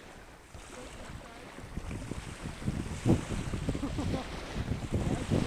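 Wind buffeting the microphone in irregular gusts, getting stronger about a second and a half in, over a background of beach surf.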